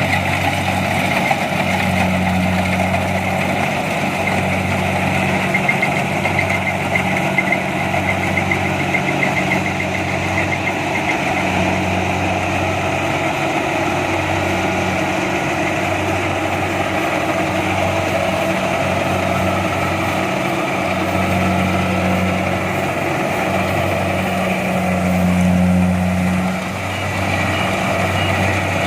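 Kubota DC-70 Plus combine harvester running steadily, its diesel engine and machinery giving a constant low note, with a brief rise and then drop in level near the end.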